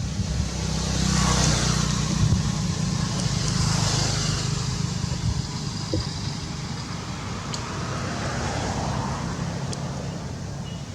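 Road vehicles passing, a steady low engine hum underneath with swells of tyre and engine noise that rise and fade.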